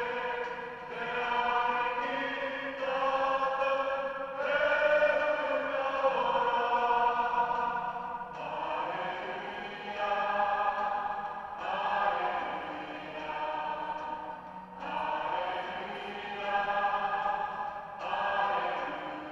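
A choir singing, a group of voices holding long notes in phrases that break every two to three seconds.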